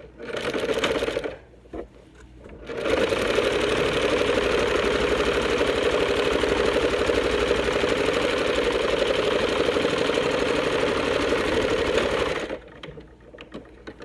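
Electric domestic sewing machine stitching a straight seam through layered cotton fabric: a short run, a pause, then a long steady run of rapid needle strokes that stops near the end.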